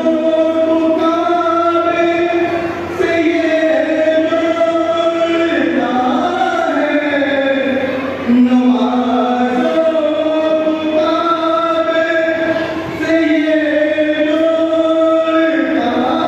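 Male voices chanting a devotional refrain in long held notes, the melodic phrase repeating about every ten seconds.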